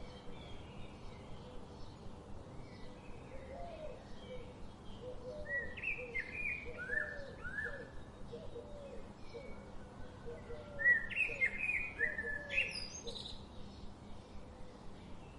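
Birds calling: series of short downward-sliding chirps, with a lower run of repeated short notes beneath them, and the loudest, highest burst of calls about eleven seconds in.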